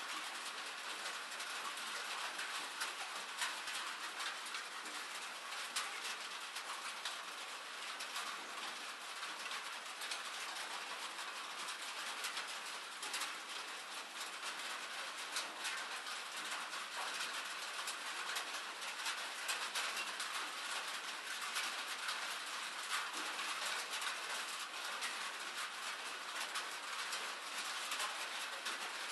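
Steady rain falling: an even hiss of drops, dotted with many small ticks of individual drops.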